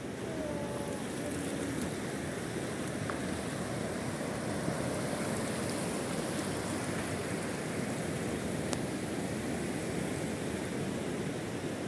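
Gentle surf washing up on a sandy beach: a steady, even wash of small waves.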